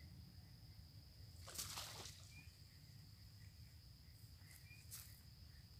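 Crickets chirring in one steady high tone, faint. A brief rustle comes about a second and a half in, and a short click near the end.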